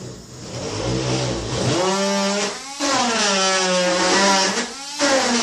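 Battery-powered Dremel rotary tool spinning a headless nail pressed against wood to heat it by friction. Its motor whine slides down and back up in pitch as the load changes.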